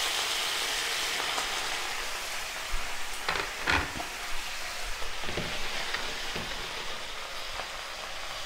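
Hot water from an electric kettle hitting a pan of frying carrots and onions, giving a loud, steady sizzle that slowly dies down. About three seconds in, a spatula scrapes and knocks in the pan a few times.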